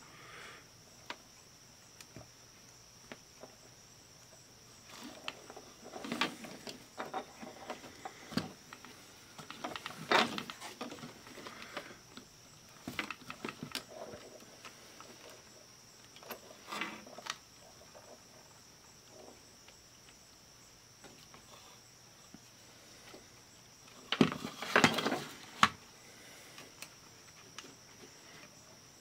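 Scattered plastic clicks and short rattles of a small portable cassette player's plastic case, keys and circuit board being handled and fitted back together, with the busiest clatter about 25 seconds in. A faint steady high whine runs underneath.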